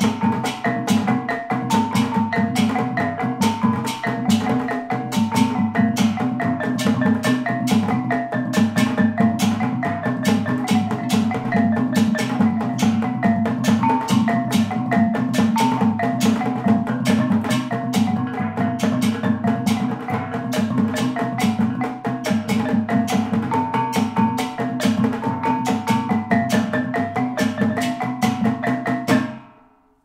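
Kulintang gong music: a row of eight tuned bossed gong-kettles struck with wooden beaters plays a ringing melody over a fast, steady beat from a goblet drum and a large hanging bossed gong. The music stops abruptly near the end.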